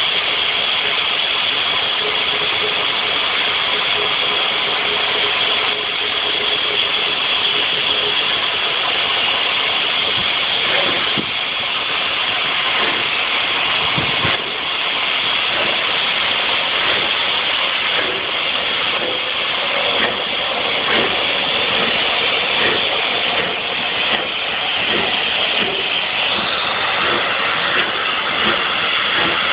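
Bulleid light Pacific steam locomotive 34053 starting a train: a steady hiss of steam, with sharp exhaust beats that start about a third of the way in and quicken as it gathers speed.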